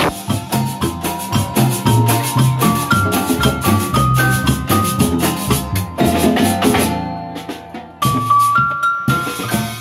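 Live band music: violin and marimba over a steady beat of drums and bass. About seven seconds in the music thins and quietens, comes back briefly a second later, and fades out near the end.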